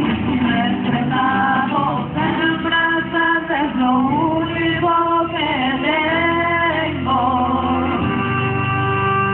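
A rondalla, a group of men's and women's voices with guitars, singing a song together; near the end they hold one long note.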